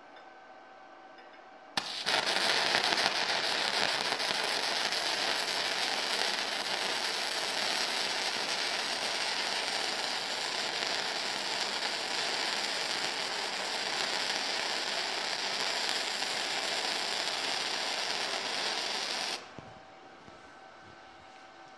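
Flux-core welding arc from a Firepower FP-200 MIG welder feeding .030 flux-core wire into 1/8-inch steel plate during a test bead. The arc strikes suddenly about two seconds in, runs steadily, and cuts off about seventeen seconds later.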